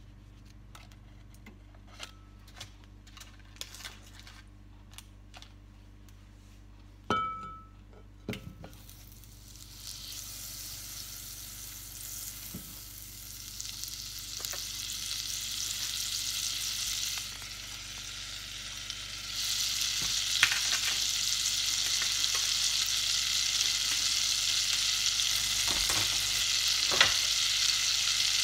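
Faint ticks, then two knocks about seven and eight seconds in as the butter goes in. Butter then melts and sizzles in the hot stone-coated pot: the hiss starts a couple of seconds later, builds, and gets louder about two-thirds through, with occasional pops.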